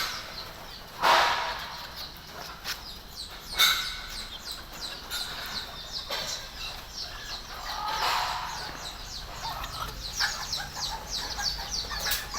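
Bantam chickens clucking and chirping while being fed, with a run of quick, high, falling chirps in the second half. Two short, louder rustling bursts come about a second in and again past three seconds.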